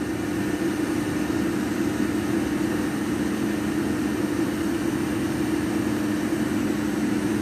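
Hamworthy Wessex Modumax Mk3 gas boiler module running: a steady hum with two low tones over a hiss from its combustion fan and burner, while its output is being set towards full (high) fire.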